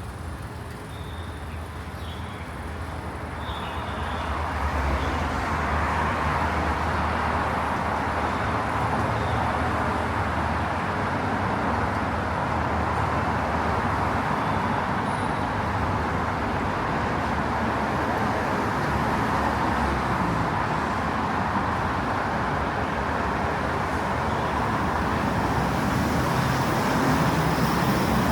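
Steady road traffic on a busy city street, cars passing, with a low rumble. It grows louder about four seconds in and stays up.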